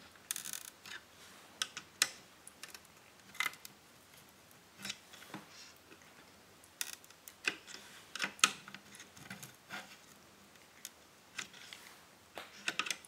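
Small sharp screwdriver prising RAM chips off a ZX Spectrum circuit board: faint, irregular small clicks and scrapes of the metal tip against the chips and their pins, a short scratchy run about half a second in and a cluster near the end.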